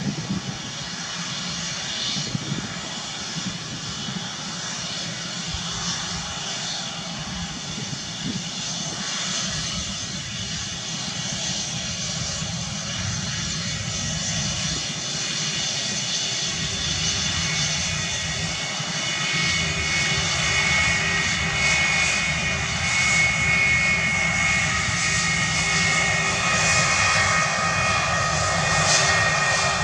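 Airbus A321 airliner's twin jet engines running as it moves along the runway: a steady jet whine that grows gradually louder, with high whining tones coming in more strongly over the second half.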